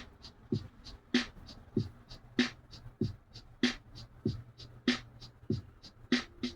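A sparse, steady percussion beat: a deep kick and a sharp snare alternate about every 0.6 seconds, with light ticks in between.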